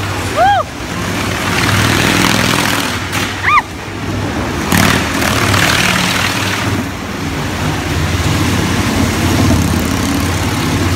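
Motorcycles running and revving as they circle the vertical wooden wall of a wall-of-death drum. Loud, with a couple of short squeals that rise and fall in pitch near the start.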